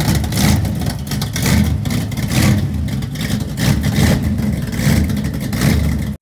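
An engine revving loudly in uneven swells, then cutting off suddenly at the very end.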